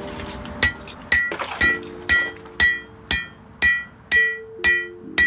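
Hand hammer striking a heated steel round bar on a homemade steel anvil: about ten even blows, two a second, each with a bright metallic ring.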